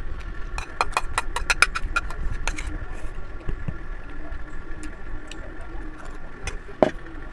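Metal fork and spoon clicking and scraping against dishes in a quick run of clicks as spaghetti is scooped, followed by quieter eating with a few faint clicks, and a short louder sound falling in pitch near the end. A steady low hum runs underneath.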